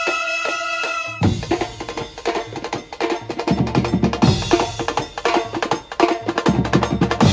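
Brass band horns (saxophones and trumpets) hold a pulsing chord for about a second, then cut off and a percussion break takes over: a large barrel drum, drum kit with cymbals, and hand drums playing fast, dense beats with heavy low booms.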